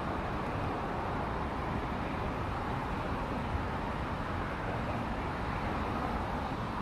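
Steady outdoor background noise: a low, even hum with no distinct events.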